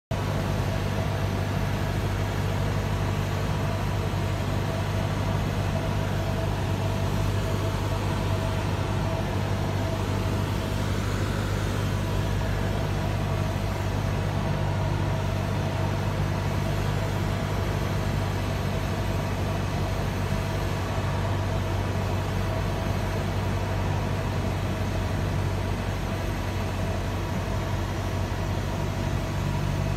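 Single-engine light aircraft's piston engine and propeller droning steadily from inside the cockpit, on approach to land, with no change in power.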